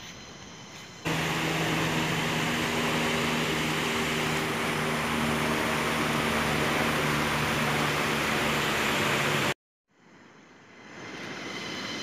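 Helicopter flying overhead: a steady engine-and-rotor noise, a loud hiss over a low steady hum. It starts abruptly about a second in and cuts off suddenly near the end.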